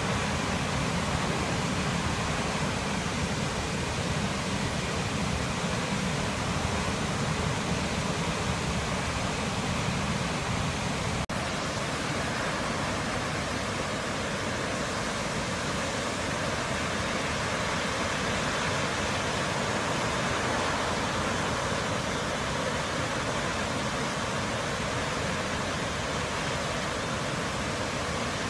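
Heavy flood discharge from the Misedani Dam, swollen by typhoon rain: a steady roar of falling, rushing water. About eleven seconds in there is a brief click, after which the low rumble eases and the hiss sits higher.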